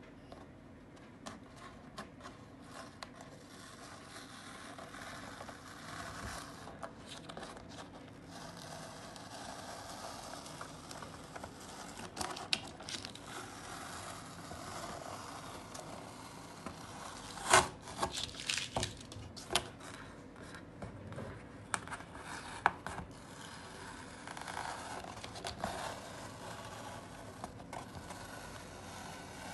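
Masking tape being peeled off the edges of a watercolour sheet, with paper rubbing and rustling as it is handled. There are irregular sharper crackles, the loudest cluster about two-thirds of the way through.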